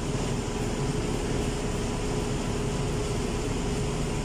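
Steady drone of running machinery and ventilation, with a constant hum tone and no change in level.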